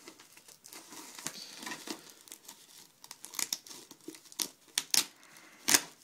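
Thin white plastic protective wrapping crinkling and rustling as hands pull it off a boxed device, in irregular sharp crackles, the loudest near the end.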